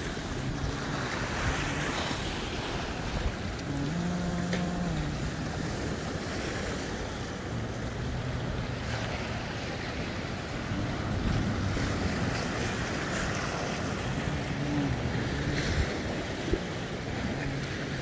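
Sea waves washing and breaking over shoreline rocks, a steady surf noise that swells and eases, with wind buffeting the microphone.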